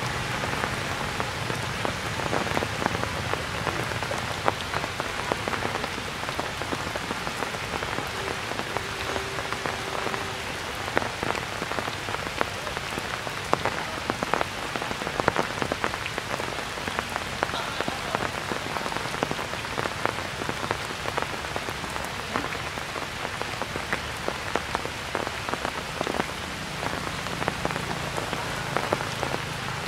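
Steady rain falling, a constant hiss dotted with many sharp ticks of nearby drops striking.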